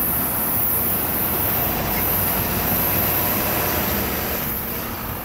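Road traffic, cars and a box truck, driving over a railroad grade crossing just after a freight train has cleared, with the train's rumble still in the mix. A steady noise that eases slightly near the end.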